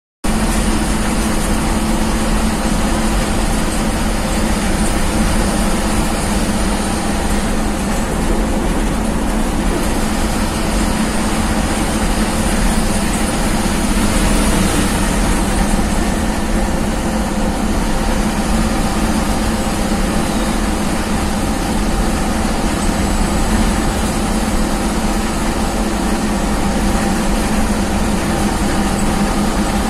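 Bus engine running steadily at cruising speed, heard from inside the driver's cab as a constant low drone mixed with road and tyre noise.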